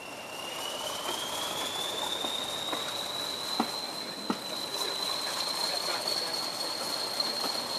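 English Electric Class 40 diesel locomotive 40145 working hard as it pulls away, its turbocharger whistle rising in pitch over the first few seconds and then holding steady over the engine and train running noise. Two sharp clicks sound about halfway through.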